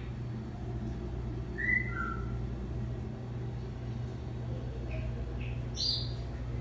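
A steady low hum with a few short, high chirps: two falling chirps about two seconds in, and a quick cluster of higher chirps near the end.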